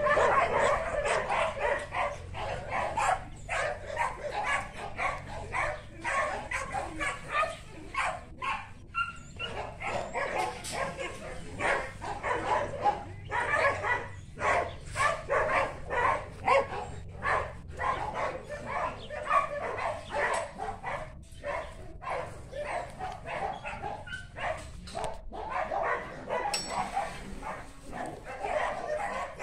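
Several dogs barking and yipping over one another, almost without pause.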